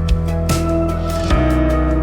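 Background music: sustained pitched chords over a deep bass with a regular beat, changing chord about halfway through.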